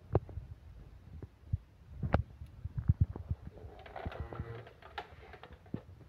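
Irregular low bumps and sharp knocks from a handheld phone's microphone being moved and brushed by the hand filming, the loudest knocks about two and three seconds in.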